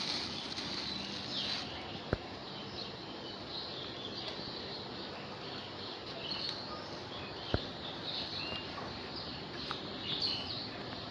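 Birds chirping and calling over a steady outdoor background hiss, with two sharp clicks, one about two seconds in and one about seven and a half seconds in.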